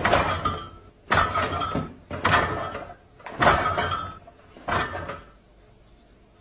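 A fridge door banged repeatedly: five sharp bangs about a second apart, each followed by a short clatter.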